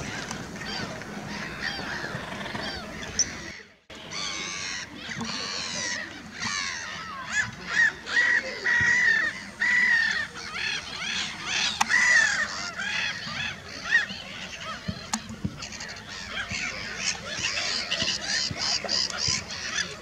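Waterbirds calling over one another in a dense, repeated chorus of short harsh calls, loudest in the middle. There is a brief break about four seconds in.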